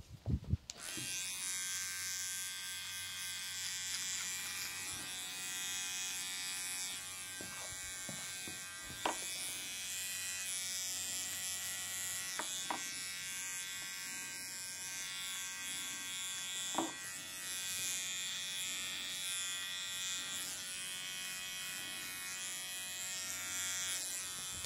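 A barber's electric razor switches on just under a second in and buzzes steadily, with a few brief clicks along the way.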